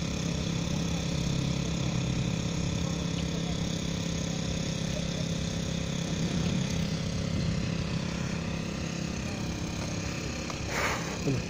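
An engine idling steadily with a low hum, and a short rushing noise near the end.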